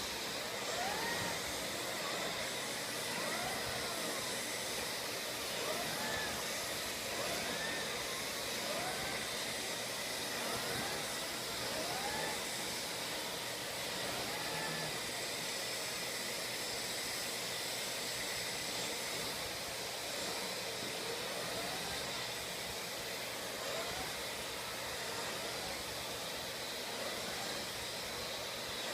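Vacuum cleaner running steadily, a constant hiss and whine. Short rising-and-falling tones recur every second or two over it, mostly in the first half.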